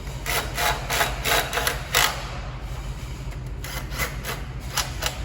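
Repeated short metal scraping strokes, about three a second, as hand tools work the diesel engine's oil pump parts back together: one run in the first two seconds and another near the end, over a steady low hum.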